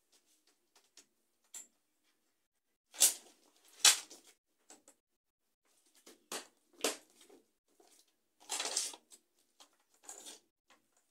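Plastic panels and corner connectors of a DIY cube wardrobe being handled and fitted together: scattered clicks, knocks and short scraping rustles, with a few sharper knocks about three to four and seven seconds in.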